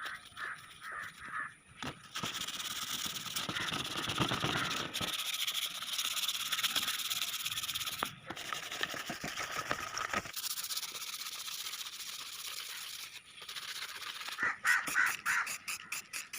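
Hand sanding or abrasive rubbing on a part: a steady rasp, then quick, regular back-and-forth strokes near the end.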